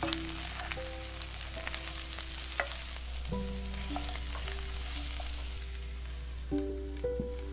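Chopped cabbage and bacon sizzling in a nonstick frying pan as a wooden spoon stirs it, with scattered clicks of the spoon against the pan; a lid is set on the pan near the end. Background music with held melodic notes plays throughout.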